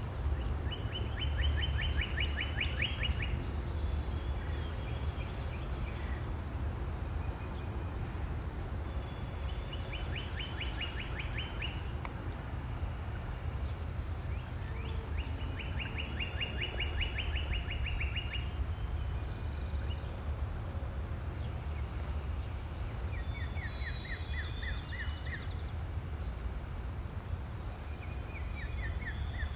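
A songbird singing a fast trill of about two seconds, repeated five times at intervals of six or so seconds, over a steady low rumble.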